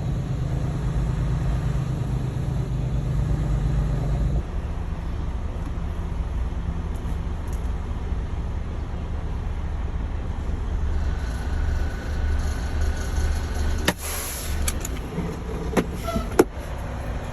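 Freightliner semi tractor's diesel engine running, a steady low drone that changes tone about four seconds in. A few sharp clicks and knocks sound near the end.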